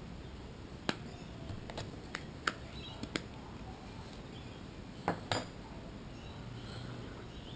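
Small metal pieces clinking and tapping against a dish while being weighed out, a scattering of sharp clinks with two close together about five seconds in.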